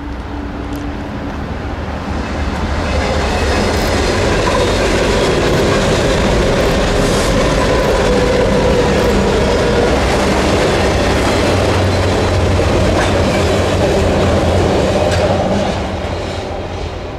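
Diesel locomotives at the head of a BNSF freight train running over a steel railroad deck bridge, with wheels clicking over the rail joints. The engine sound builds over the first few seconds, holds loud and steady, then drops off near the end as the autorack cars follow.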